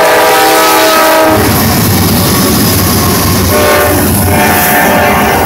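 Norfolk Southern diesel freight locomotives passing close at speed, the lead engine's horn sounding a loud chord that cuts off about a second in. A heavy rumble of engines and wheels follows, and the horn sounds again, fainter, a little past halfway.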